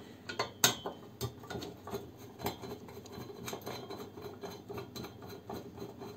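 Screwdriver turning the screw that holds a stainless steel teapot's plastic handle: a run of irregular small metal clicks and ticks, the sharpest about two-thirds of a second in.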